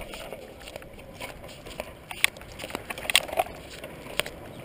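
Child's bicycle rolling over a concrete footpath: a steady low hiss with a few sharp clicks and knocks, the loudest about two and three seconds in.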